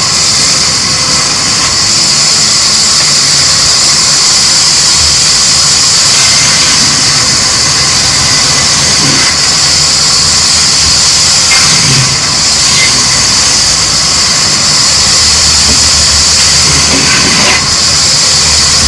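Loud, steady machinery noise running without a break, with a strong hiss.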